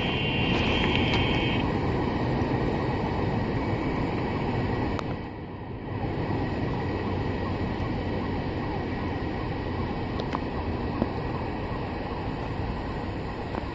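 Freight train's hopper cars rolling away on the rails, the wheel rumble slowly fading as the train recedes. A high steady tone stops about a second and a half in.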